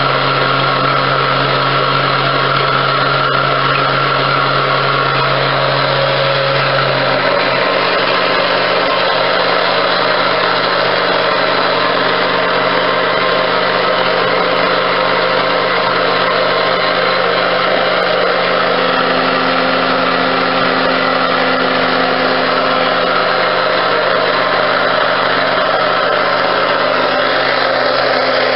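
Electric blender motor running steadily without a break, its hum shifting slightly higher in pitch about seven seconds in.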